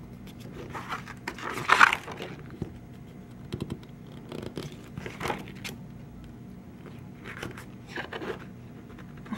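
Glossy pages of a large photobook being turned and handled, paper swishing and scraping several times; the loudest swish comes about two seconds in.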